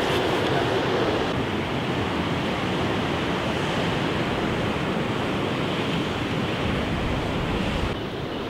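Ocean surf and wind on the microphone: a steady, even rushing noise that shifts in tone about a second in and again near the end.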